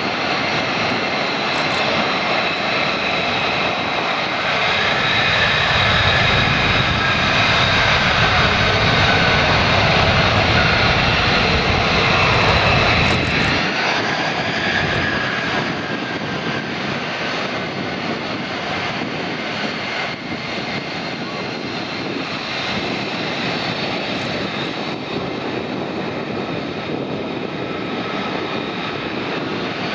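F-35 fighter's single jet engine running at taxi power: a steady high whine over a deep rumble. The rumble swells and then drops away suddenly about halfway through, leaving a thinner, quieter whine.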